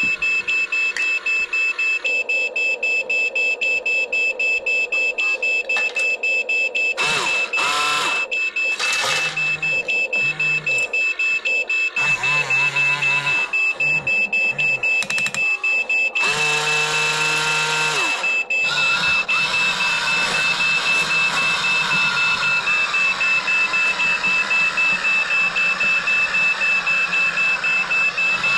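Electronic beeper sounding rapid, evenly spaced high-pitched beeps throughout. Other shorter sounds come over it near the middle.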